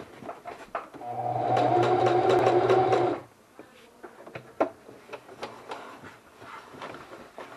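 Electric sewing machine stitching a test run for about two seconds, starting about a second in and stopping abruptly, with a steady motor hum. Faint small clicks of handling the fabric and machine follow.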